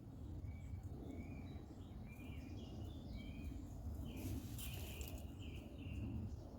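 Small birds calling in a run of short, high chirps over a steady low rumble, with a brief burst of rustling noise about four seconds in.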